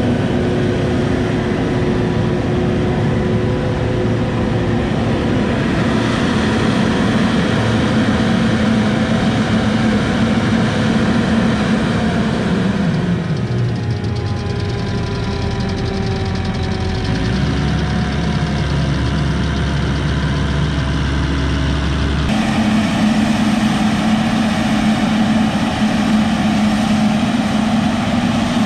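Diesel engines of farm machinery running steadily. Midway the engine note falls and then rises again, a steady low hum holds for a few seconds, and the sound changes abruptly near the end.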